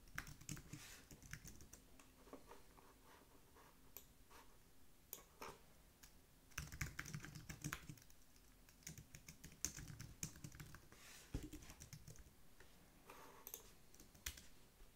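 Faint typing on a computer keyboard, keystrokes coming in short bursts with pauses between.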